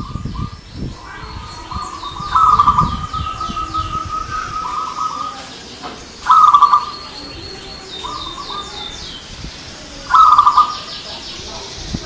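Zebra dove (perkutut) cooing: a long trilled coo, then loud short bursts of rapid cooing notes about every four seconds. Higher, quicker chirps of other small birds come and go between the coos.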